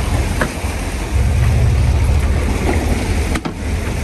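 Wind buffeting the microphone in heavy low gusts over the steady rush of water along the hull of a sport fishing yacht under way.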